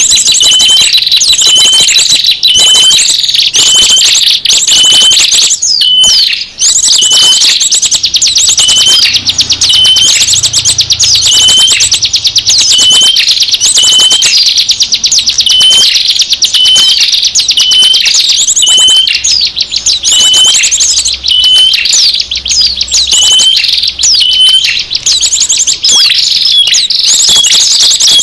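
Small-bird lure (pikat) call recording: a dense, continuous stream of rapid high-pitched chirps and trills, with a short hooked note repeating about once a second.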